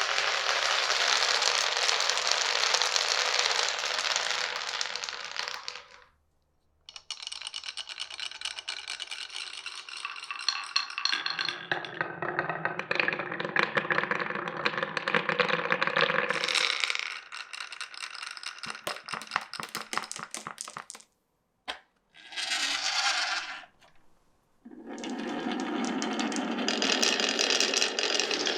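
Marbles rolling and clattering through a wooden and plastic marble run. A dense rattle of many balls at once gives way, after a brief break, to rolling with rapid clicks as they run along the track. After a couple of short pauses, another dense rattle comes near the end.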